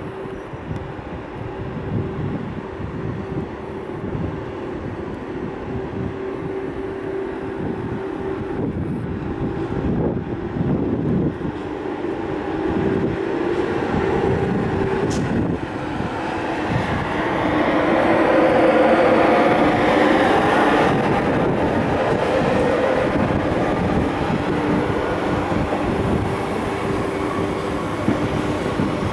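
Train running on the track: a continuous rumble with several steady held tones, building to its loudest about two-thirds of the way through.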